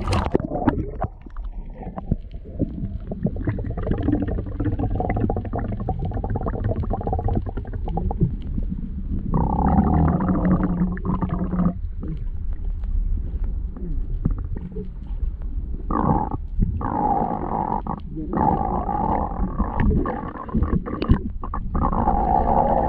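Muffled underwater noise picked up by a camera held just below the surface: a continuous low churning rumble of moving water. Louder droning stretches start about nine seconds in and again about sixteen seconds in, broken by a few brief dropouts.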